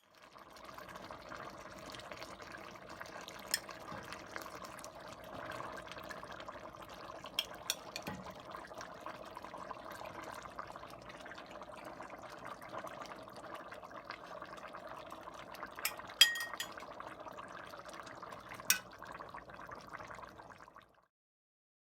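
Liquid in a cooking pot of curry, a steady watery sound with about six sharp clinks of a utensil against the pot, the loudest about sixteen seconds in.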